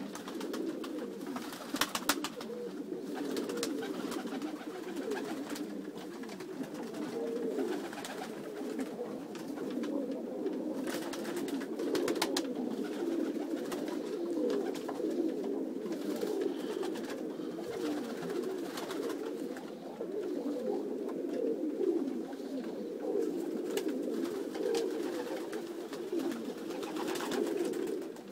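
A flock of domestic pigeons cooing together, a continuous overlapping chorus of low coos, broken a few times by short sharp clatters.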